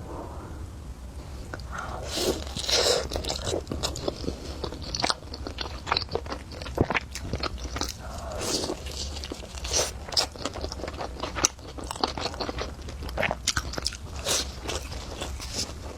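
Close-miked eating: biting and chewing with irregular crunches and mouth clicks, over a steady low hum.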